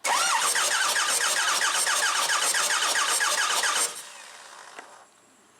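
Ford 6.0 Powerstroke V8 diesel being cranked over by its starter without firing, a steady rhythmic churn of about five pulses a second from the compression strokes, during a compression test of cylinder 3, which reads a healthy 380 to 400 psi. Cranking stops about four seconds in.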